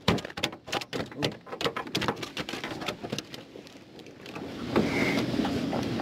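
Irregular taps and knocks as a black crappie is swung aboard and flops and is handled on a small fishing boat's deck. From about four seconds in, a steadier rustle of handling and water noise takes over.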